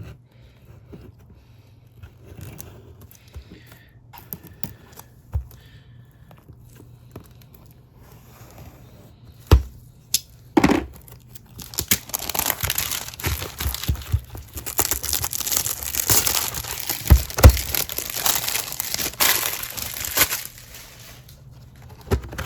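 Wrapping being torn and crinkled off a trading card box as it is opened, after some light handling clicks and two sharp taps about ten seconds in; the crinkling lasts about eight seconds.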